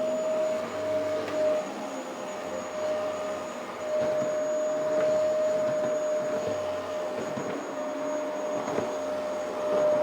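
Vacuum cleaner running: a steady motor whine over the rush of suction. The whine and level dip for a couple of seconds, about two seconds in.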